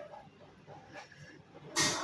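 Metal pump parts and tools being handled on a workbench: faint scraping and knocking, then a brief loud metallic clatter near the end.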